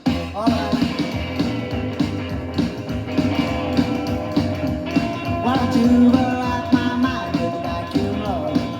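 Psychobilly rock band playing from a 45 rpm 12-inch vinyl single: guitar, bass and drums between sung lines, with sliding rising notes about half a second in and again around the sixth second.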